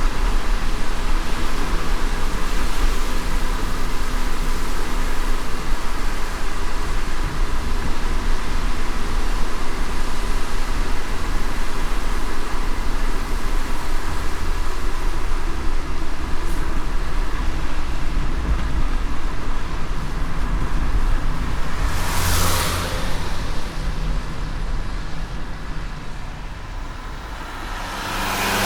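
Car driving on a wet road in the rain: a steady low road rumble under an even hiss, with two brief louder whooshes, one about two-thirds of the way through and one near the end.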